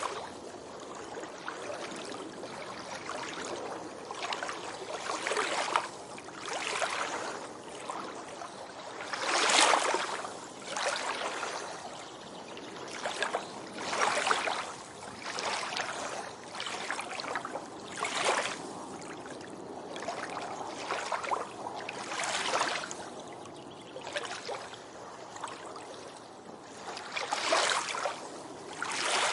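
Small waves breaking and washing up on a beach, surging again every second or two over a steady background hiss of water.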